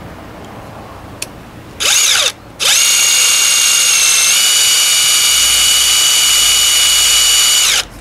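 Electric drill with a twist bit boring holes through a thin metal alcohol-stove windscreen. A short burst comes about two seconds in, then a steady whine runs for about five seconds, steps up in pitch partway and winds down near the end.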